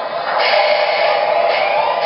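Steady mechanical hum with a hiss, played by the onboard ProtoSound 2.0 sound system of an MTH Railking R-17 subway car model standing at the station. It grows louder about half a second in.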